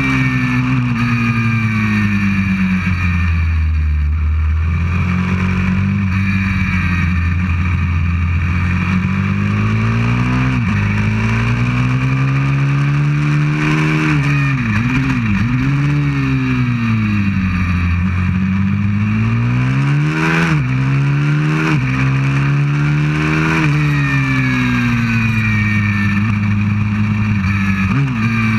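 190cc single-cylinder pit bike engine heard from a camera on the bike while riding hard on track. Its revs rise and fall over and over, with several quick drops in pitch.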